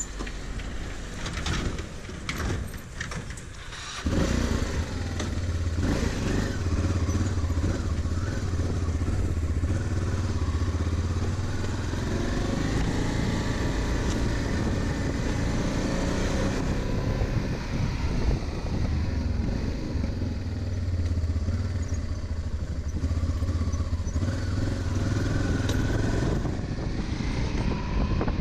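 Honda Transalp 600's V-twin engine heard from the bike as it rides. For the first few seconds it runs quietly with a few clicks; about four seconds in it gets suddenly louder as the bike pulls away, then holds a steady low drone while cruising.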